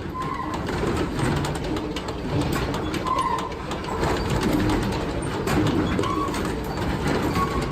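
Sawmill log-handling machinery running: a steady clattering din with many small knocks, and a short high squeak every couple of seconds.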